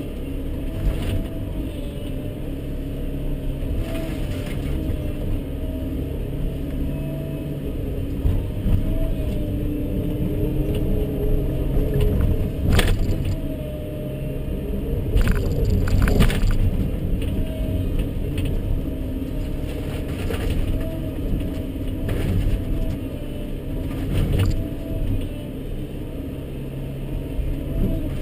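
Volvo 140BL tracked excavator heard from inside its cab: the diesel engine runs steadily under load while the hydraulics work the arm. The bucket digs through the wreckage of a wooden barn, with sharp cracks and knocks of breaking timber, the loudest about 13 and 16 seconds in.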